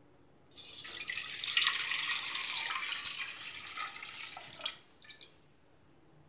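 Milk being poured from a bowl into an empty stainless-steel pot: a steady splashing pour that starts about half a second in, thins out over about four seconds, and ends with a few drips.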